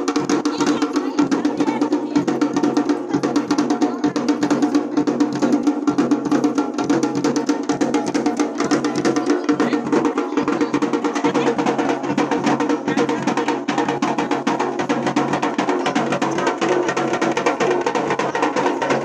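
Loud, fast drumming with dense rapid strikes over a steady droning tone, music played for a deity's doli procession.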